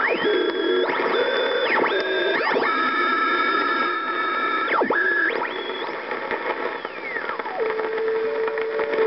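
National NC-57M tube receiver's speaker giving whistling beat tones over a hiss of static as its dial is tuned across longwave signals. The whistle sweeps up to a high pitch, holds, and shifts between several tones, then glides down to a low steady tone about two-thirds of the way in.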